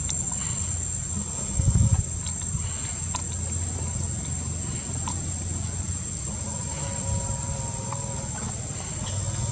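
Insects in the trees droning in one steady, high-pitched whine, over a low rumble that swells briefly about two seconds in.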